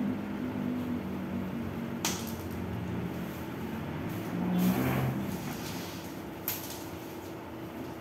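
Tent pole and nylon tent fabric being handled as a pole is bent into an arch: a sharp click about two seconds in, a swishing rustle just past the middle as the tent body lifts, and another click near the end, over a steady low hum.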